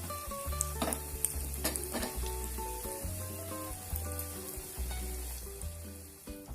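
Semolina-coated vegetable patties frying in hot oil: a steady sizzle with small crackles, under background music with a pulsing bass line.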